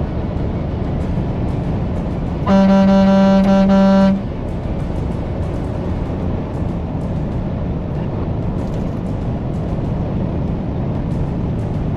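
One long blast of a vehicle horn, held for under two seconds, over a steady rush of road and traffic noise.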